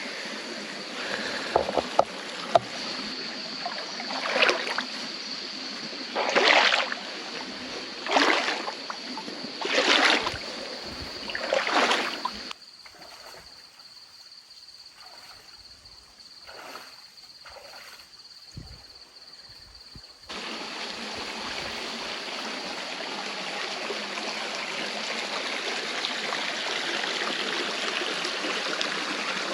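Steady rush of a rainforest stream with a thin, steady high insect drone over it. In the first twelve seconds a series of loud splashing swells comes about every second and a half. Then the sound drops suddenly to a quieter stretch, and about twenty seconds in the stream's rush comes back louder and steady.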